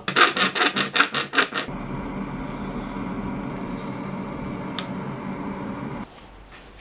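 Homemade fishing-lure roulette wheel spinning, clicking rapidly for under two seconds. Then the steady hiss of a handheld gas blowtorch flame, which stops about six seconds in.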